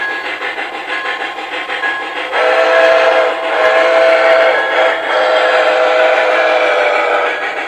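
MTH model Pere Marquette 2-8-4 Berkshire steam locomotive's onboard sound system: rhythmic chuffing, then a chime steam whistle blown long, long, short, long, the grade-crossing signal. The whistle starts about two seconds in and is the loudest sound.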